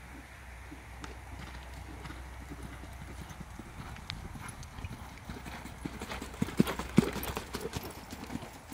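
Hoofbeats of a ridden ex-racehorse moving over a sand arena, a run of dull strikes. They grow louder about two-thirds of the way in, where the two loudest strikes come.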